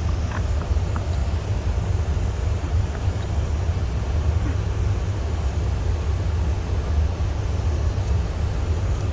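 Steady low machine rumble with a few faint clicks, such as a spray gun being handled.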